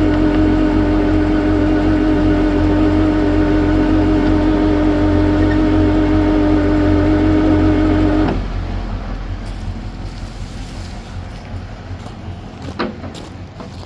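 A truck engine running steadily with a strong humming tone, then shutting off abruptly about eight seconds in; a single click follows near the end.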